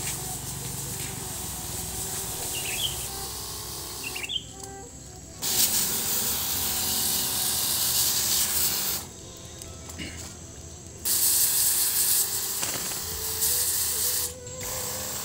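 Hiss of a garden pressure sprayer's lance misting leaves, in two long bursts of about three seconds each with short breaks between, over a steady low hum.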